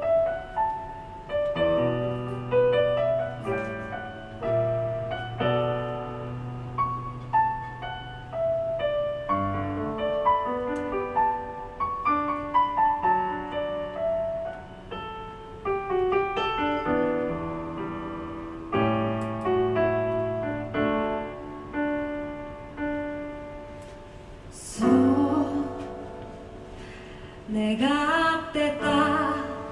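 Piano playing a flowing melodic passage over low held bass notes. Near the end a woman's voice sings briefly with vibrato.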